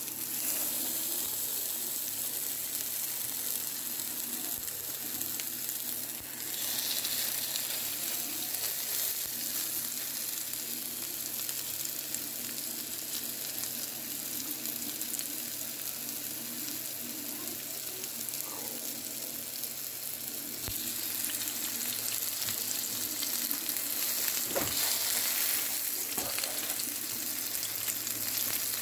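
Ground-meat burger patties sizzling as they fry in hot oil in a pan, a steady hiss that grows a little louder about two thirds of the way in, with a few light knocks near the end.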